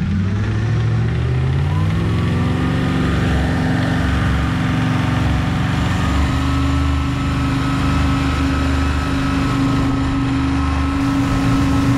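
Supercharged LS V8 driving a jet boat at part throttle: the revs climb over the first couple of seconds, then hold steady, with water rushing past the hull. This is a low-rpm, part-throttle pass made while the engine's fuel injection is being tuned.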